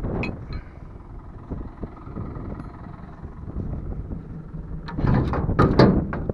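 A hand hoe scraping caked manure off the edge of a manure trailer's body, several hard scrapes about five seconds in, over the low steady running of a tractor engine.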